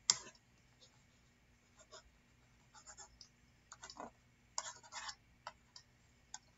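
Faint clicks and short scratchy strokes from a computer drawing device as handwriting strokes are drawn: one sharp click just after the start, then scattered brief scratches and clicks, a cluster of them a little before the fifth second.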